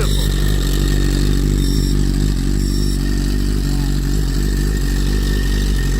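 BMW S1000RR inline-four engine idling steadily, with the clatter of an STM dry slipper clutch turning in the open.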